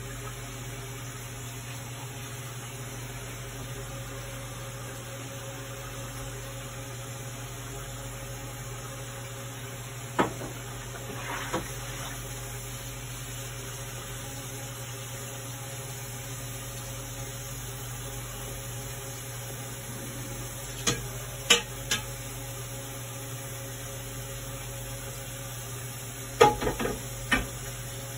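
Steady low hum of a covered stainless steel stock pot on a gas burner, broken by a few sharp clinks of metal pots and utensils: once about ten seconds in, three in quick succession past the middle, and a cluster near the end.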